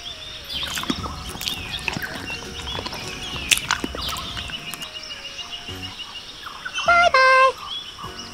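Small wet clicks and taps of a baby macaque picking at and eating watermelon, over birds chirping. Near the end there is a loud, short squeal that steps down in pitch.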